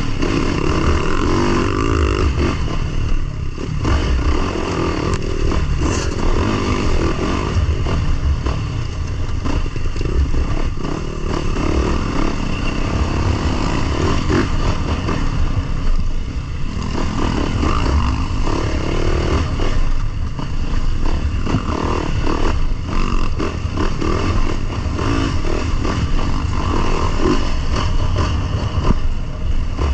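Dirt bike engine running on a trail ride, its pitch rising and falling as the throttle opens and closes.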